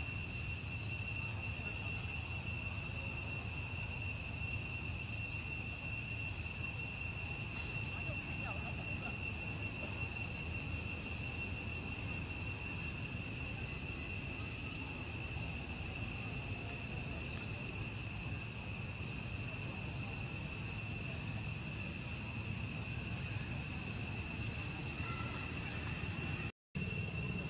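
Steady chorus of insects, a continuous shrill drone at two pitches over a low rumble. The sound drops out for an instant near the end.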